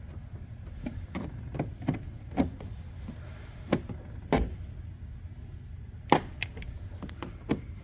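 Irregular sharp knocks and clicks, about ten of them, from hand work taking the wiper arms off a van's windshield cowl, over a low steady background rumble.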